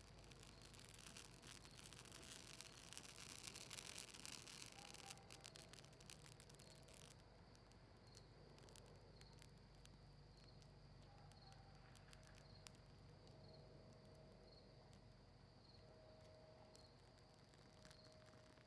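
Faint crackling of a campfire burning cedar leaves and maple wood. Many small pops come in the first several seconds, then they thin out. A steady high insect chirp pulses about once a second throughout.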